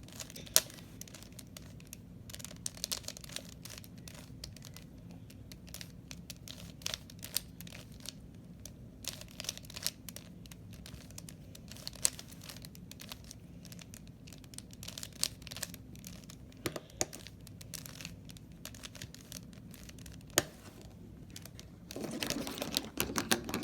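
A plastic 3x3 Rubik's Cube being turned quickly by hand: an irregular run of small clicks and rattles as the layers snap round, with a few sharper clacks.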